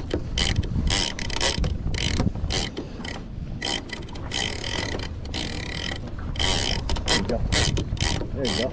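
Penn International 50VISW big-game reel being cranked hard, its gears and mechanism clicking and rasping several times a second as line is wound in under the heavy load of a hooked bluefin tuna. A steady low rumble lies underneath.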